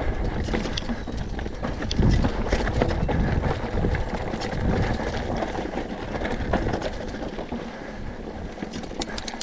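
Mountain bike riding down loose, rocky dirt singletrack: tyres rolling over dirt and stones with frequent clicks and rattles from the bike, under a steady low rumble of wind on the microphone that is strongest about two seconds in.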